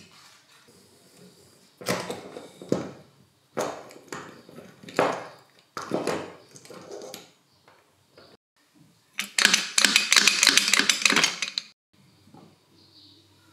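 Metal hand tools clinking and knocking on a drill's motor armature as a gear puller is fitted to draw the gear off its shaft. About nine seconds in, a louder burst of rapid clicking and scraping lasts a couple of seconds.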